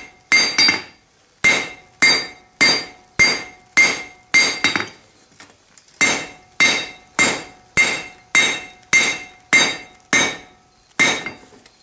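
Hand hammer striking a red-hot railroad spike on a steel anvil in a steady run of blows, about two a second, each one ringing, with a short pause about five seconds in. The blows are drawing out and squaring the spike's shank to gain length.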